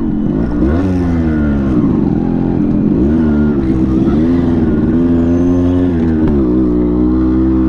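Yamaha RX 100's 98 cc two-stroke single-cylinder engine pulling under load up a slope, carrying about 140 kg. Its pitch rises and dips several times, then holds steady near the end.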